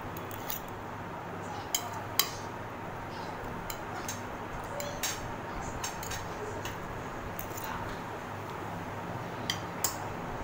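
Spoons clinking and scraping on ceramic plates during a meal, with scattered sharp clinks, the loudest about two seconds in and two more near the end, over a steady low background hum.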